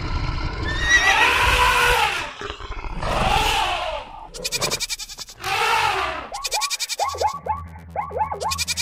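Animal-call sound effects: three drawn-out calls, each rising and then falling in pitch, over the first six seconds, then a quick run of short, falling cries. Steady low tones join the cries about seven seconds in.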